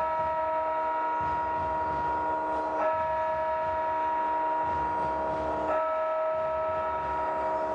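A held chord of several steady, horn-like tones, sounded afresh about every three seconds, over a low rumble.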